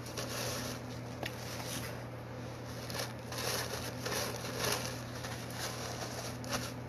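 Paper napkin rustling and crinkling as it is unfolded and tucked into a shirt collar, in a string of short, soft rustles.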